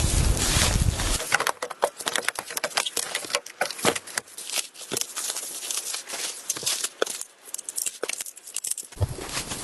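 Irregular sharp clicks and crackles. A low wind rumble stops about a second in and comes back near the end.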